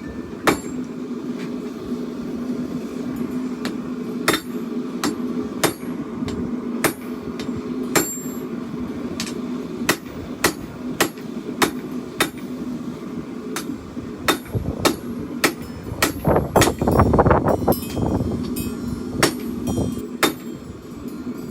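Hand hammer striking hot steel on an anvil, sharp ringing blows a little over once a second, over a steady low hum. Near the end a louder low rumble lasts about two seconds.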